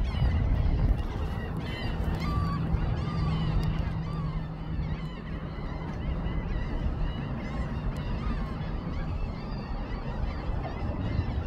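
Osprey calling in flight: scattered short, high chirps, heard over a steady low background rumble.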